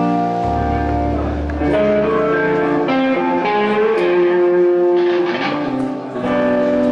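A band playing a slow song live: ringing guitar chords held and changed every second or so, with a low bass note sounding for about the first second after the start.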